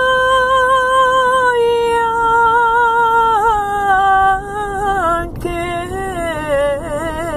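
A woman singing a Serbian folk song unaccompanied, holding one long wordless note that falls slowly in steps. Near the end it breaks into quick, wavering ornaments.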